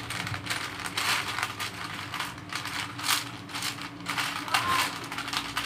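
Small plastic Lego pieces clicking and rattling as they are handled, a quick irregular run of sharp clicks.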